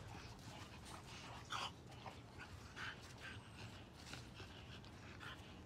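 Faint dog sounds: a few short, breathy noises spaced about a second apart.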